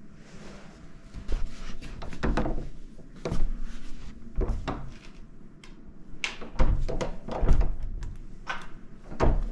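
A series of dull thuds and knocks, about half a dozen, coming at uneven intervals.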